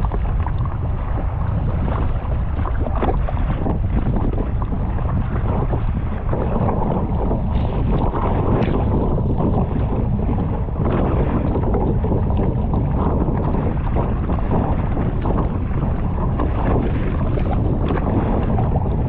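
Strong wind rumbling steadily on the microphone out on the sea, with many short knocks or splashes through it.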